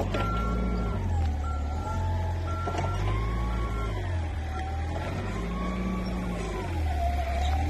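Forklift engine running with its reversing alarm beeping four times, about once a second, then stopping about four seconds in; a whine slowly rises and falls over the engine.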